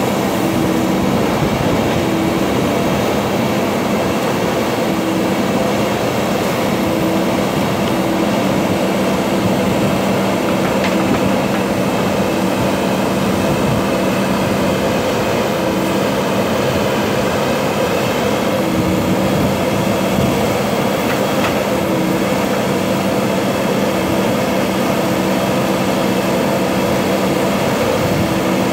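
Diesel engine of a JCB backhoe loader running steadily, with a constant low hum and a higher tone that drops out briefly every second or two.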